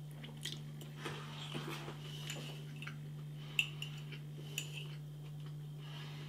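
Cutlery clinking and tapping lightly against a plate in a few scattered touches, the sharpest about three and a half seconds in, over a steady low hum.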